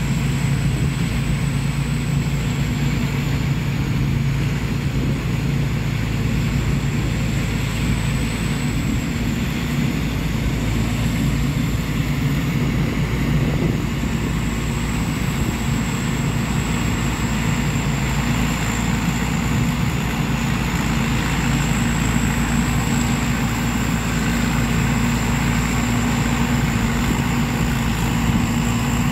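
Rice combine harvester's diesel engine running steadily as the machine harvests the paddy, with a thin high whine wavering slightly in pitch above it.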